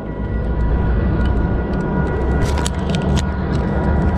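A heavy vehicle running with a steady low rumble, and a few sharp clicks between about two and a half and three seconds in.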